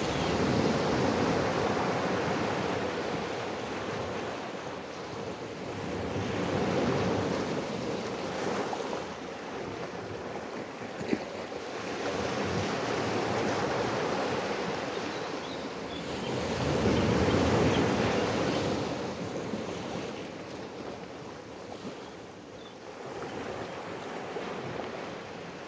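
Ocean surf: waves breaking and washing in, the rushing noise swelling and fading away about five times.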